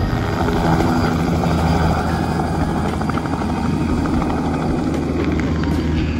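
Helicopter engine and rotor noise heard from inside the cabin, a steady loud drone as it climbs just after take-off.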